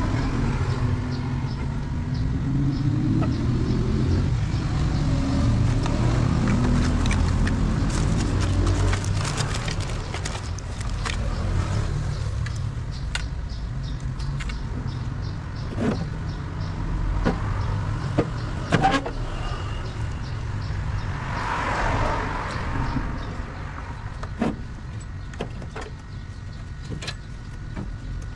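An engine runs throughout with a steady low rumble, its pitch sliding up and down over the first few seconds. Scattered sharp clicks and taps sound through the middle.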